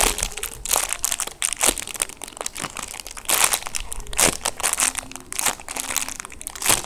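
Irregular crinkling and rustling of plastic as a squishy toy and its packaging or tag are handled and squeezed close to the microphone.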